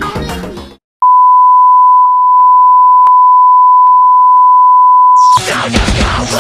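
Background music cuts out, then a loud, steady, single-pitch beep tone holds for about four seconds, with a few short clicks over it. Loud, heavy rock-style music starts abruptly near the end.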